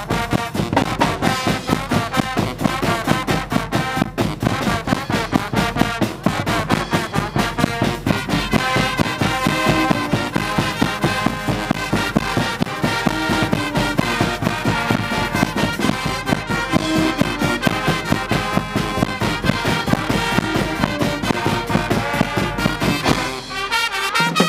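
Guggenmusik carnival band playing live: sousaphones, trumpets and trombones over a steady drum beat from bass drums and a drum kit.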